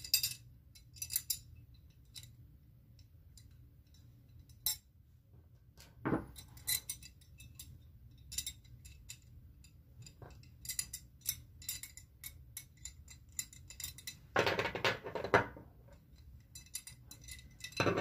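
Metal belt buckles and hardware being handled on a wooden tabletop: scattered light clicks and clinks of metal against metal and wood as a buckle is swapped on a leather belt, with a louder clatter about six seconds in and a louder stretch of handling near the end.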